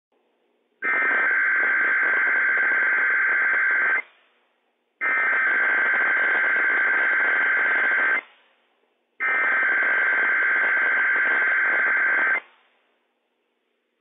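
NOAA Weather Radio Emergency Alert System SAME header: three loud bursts of buzzy digital data tones, each about three seconds long and about a second apart, with a noisy radio hiss under the tones. The bursts open a Required Weekly Test alert.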